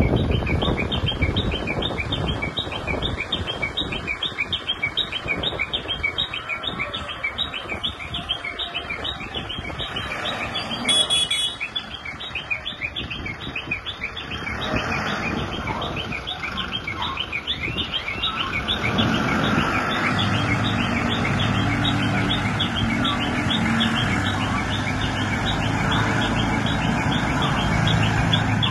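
Diesel engine of an ACE hydra pick-and-carry crane running as the crane drives, with a steadier, slightly louder engine tone from about two-thirds of the way in. Birds chirp rapidly and continuously over it.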